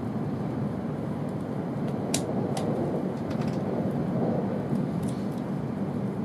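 Steady running rumble of a Shinkansen train heard inside the passenger cabin as it passes through a station at reduced speed. Two sharp clicks come about two seconds in.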